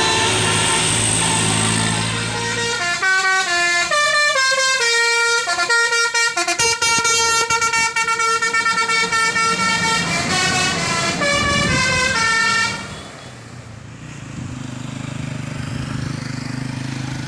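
Bus telolet multi-tone musical horn, Basuri type, first holding a chord, then playing a quick tune of short stepping notes. It cuts off suddenly about thirteen seconds in, leaving a lower rumble.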